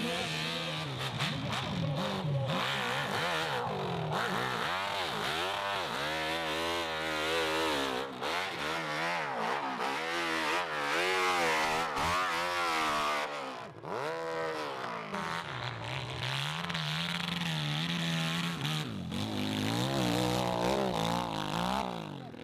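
Dirt-bike engines revving hard under load as they climb a steep slope, the pitch repeatedly rising and falling with the throttle. There is a brief lull a little past halfway.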